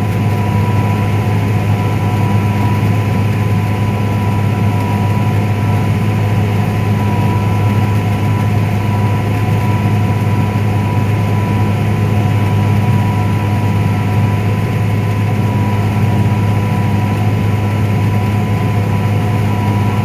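Combine harvester running steadily while cutting corn, heard from inside the cab: a deep, even engine and machinery hum with a steady high whine over it.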